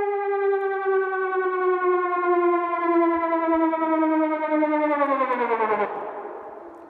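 A siren holding one long, slightly wavering tone that drifts slowly lower, then winds down in pitch and fades away about five seconds in.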